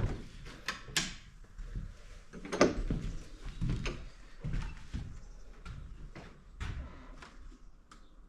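A string of short knocks and clicks, about a dozen, irregularly spaced, the loudest about two and a half seconds in.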